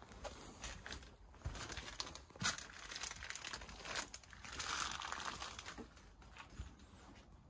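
Crinkling and rustling of junk and debris close to the microphone, with scattered knocks; the loudest is a sharp knock about two and a half seconds in, and a longer stretch of rustling follows around five seconds in.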